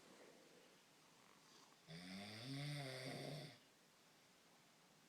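Snoring: one snore about two seconds in, lasting under two seconds, a rattling drone whose pitch rises and then holds, with breath hiss over it.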